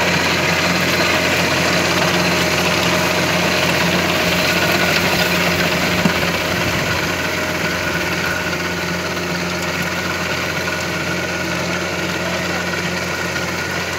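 Small 27 hp VST Mitsubishi tractor's diesel engine running steadily under load while it drives a rotary tiller through the soil. The engine grows a little quieter in the second half as the tractor moves away, and there is one sharp click about six seconds in.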